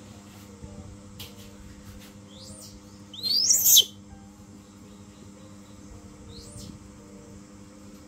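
Baby monkey giving one loud, high-pitched, wavering squeal lasting under a second about three seconds in, with a couple of fainter short squeaks before and after it.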